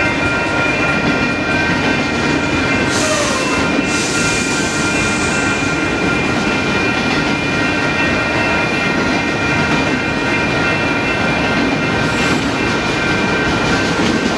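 Union Pacific freight train of autorack cars rolling steadily past, its wheels running on the rails, with a thin high squeal of several steady tones over the rumble.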